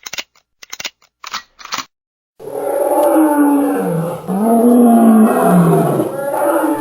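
A quick run of short sharp clicks, then a long animal roar whose pitch falls and rises again, used as a dinosaur sound effect.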